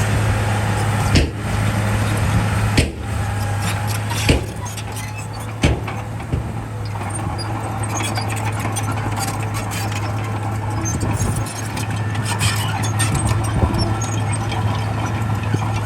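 Bulldozer's heavy diesel engine running steadily under load, with a low, even hum throughout. Four sharp metallic knocks come in the first six seconds.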